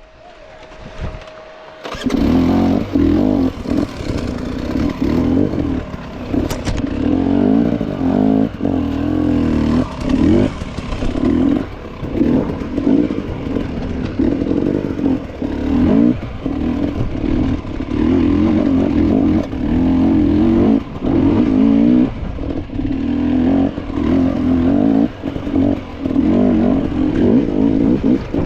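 Off-road dirt bike engine running under varying throttle, its pitch rising and falling continuously as it is revved and rolled off. It starts suddenly about two seconds in.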